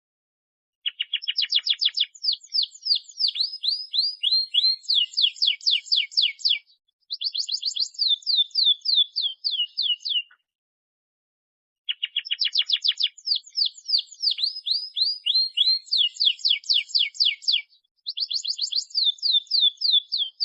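Domestic canary singing a long rolling song: fast trills of repeated down-slurred notes, switching to a new note type every second or so. Two near-identical bouts of about nine seconds each, separated by a short pause.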